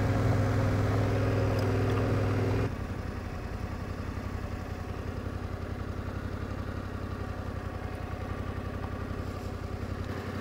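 Yamaha Ténéré 700's parallel-twin engine running at low speed, then, after an abrupt cut about a third of the way in, idling more quietly with an even, rapid pulse.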